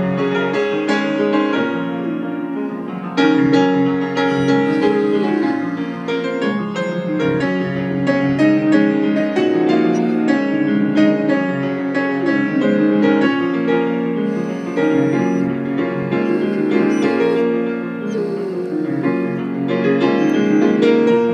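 Piano played in slow chords while a Great Pyrenees howls along several times in rising and falling howls. The dog is singing along to the piano, not crying in pain.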